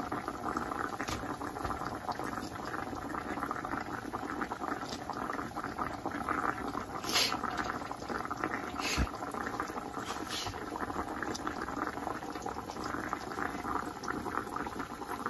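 Flour-dredged pieces of deer backstrap frying in hot oil in a cast-iron skillet, a steady sizzle and crackle. A few sharp clicks break in about seven, nine and ten seconds in.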